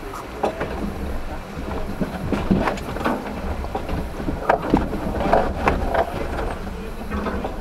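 Suzuki Jimny crawling over a rock step, heard from inside the cab: its engine runs low under load while the body and suspension clatter and knock as it lurches over the rock. There are several sharp knocks, the loudest about four and a half seconds in.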